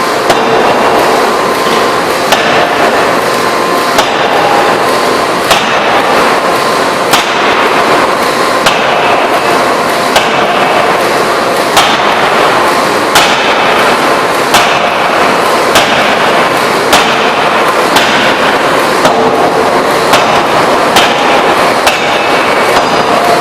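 Electro-hydraulic open die forging hammer striking repeatedly, a sharp blow about every one to one and a half seconds, over a steady loud din.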